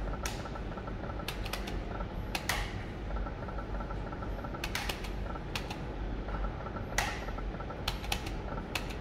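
Shining Crown video slot machine spinning its reels: a scattering of sharp clicks and knocks at irregular intervals, with a faint repeating electronic tone over a steady low hum.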